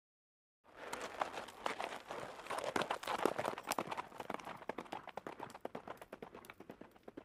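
Horse hoofbeats: many rapid, irregular hoof strikes on the ground, beginning abruptly less than a second in and thinning out toward the end.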